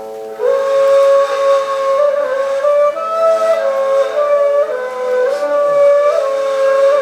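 A flute-like wind instrument begins about half a second in, playing a slow melody that steps between a few close notes over a steady drone.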